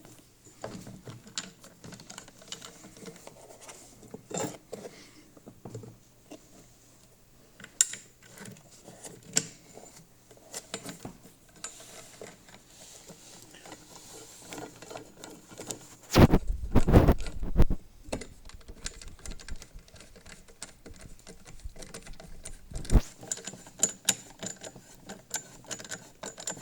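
Hand tools and metal parts being handled while bolts are screwed in: scattered clicks and light metallic taps, with a louder rattling burst lasting about a second and a half, about 16 seconds in.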